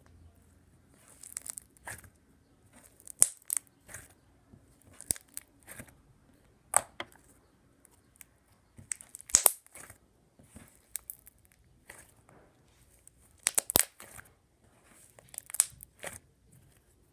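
Slime being stretched and squished by hand, making sticky crackling and snapping sounds in irregular short bursts every second or so, the loudest about three, nine and a half, and fourteen seconds in.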